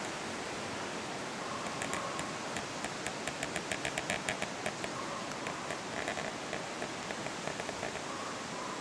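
Steady outdoor background hiss with a rapid run of sharp clicks, about six to eight a second, starting about two seconds in and fading out around five seconds, then a shorter run of clicks about six seconds in.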